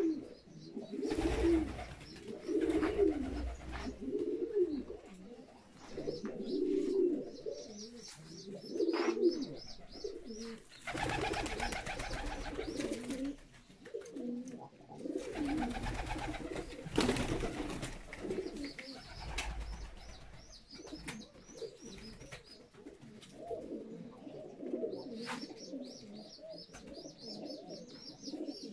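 Domestic pigeons cooing over and over in a small loft, the low throaty coos of several birds overlapping. A high, rapid chittering comes in at times, and a couple of louder stretches of noise come through the middle.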